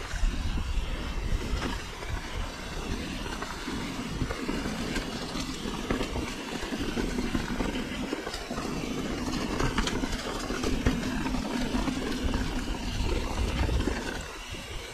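Mountain bike rolling fast down a muddy, stony track: knobbly tyres on wet dirt and loose stones, the bike rattling over small bumps, and a low rumble. In the second half a steadier low hum joins in as the track runs smoother.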